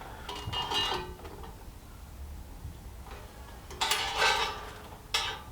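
Steel plates clanking against each other and against the steel structure as they are handled and fitted, three times. Each clank has a short metallic ring.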